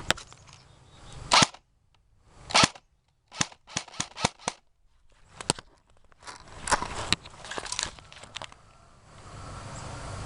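Airsoft gun firing: sharp single shots, then a quick string of about six shots a little past a third of the way in, and more scattered shots after that.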